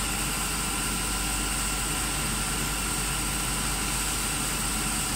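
Steady hum and hiss of running workshop machinery, with a few faint steady tones and no distinct knocks or clicks.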